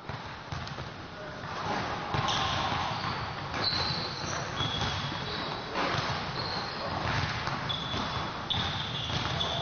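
Basketball game sound in an arena: steady crowd noise, with sneakers squeaking on the court several times and a ball bouncing.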